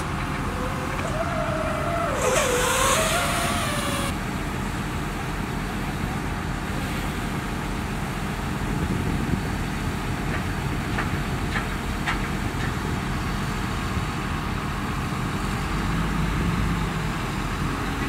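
Heavy construction-machine diesel engine running steadily. About a second in there is a brief wavering whine with a hiss, and a few light clicks come around the middle.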